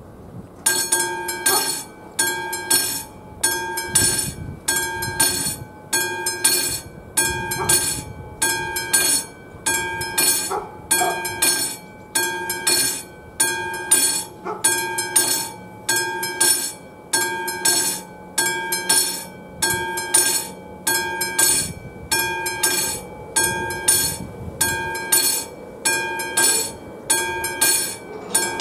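Level-crossing warning bell of an AŽD 71 signal (the classic mechanical bell) starting just under a second in and then striking steadily, a little faster than once a second: the crossing has activated to warn of an approaching train.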